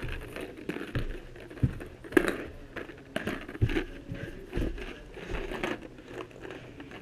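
Rustling and handling noise from a body-worn camera being jostled, with irregular soft thumps, as its wearer picks up ping pong balls off the carpet and moves about.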